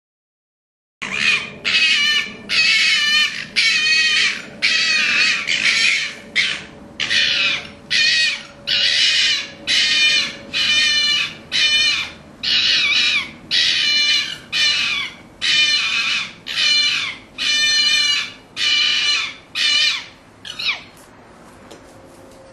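Two red fox vixens calling at each other in a ritual fight. About twenty calls come in a row, roughly one a second, starting about a second in and stopping shortly before the end.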